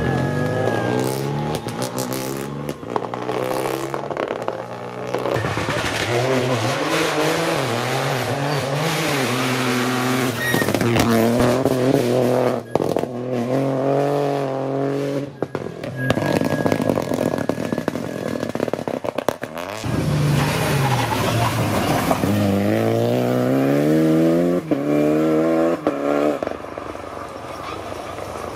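Rally cars at racing speed, one after another, each engine revving hard, rising in pitch and dropping back at every gear change.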